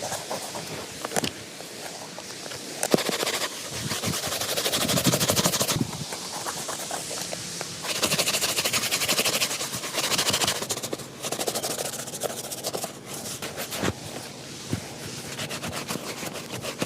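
Shoe being polished by hand: rapid, even rubbing strokes on the leather in two long spells, about three and eight seconds in, with scattered taps and scrapes between them.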